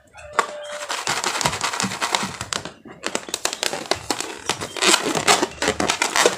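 Slime being squished and worked by hand, giving a dense run of small crackles and pops, with a short pause about three seconds in.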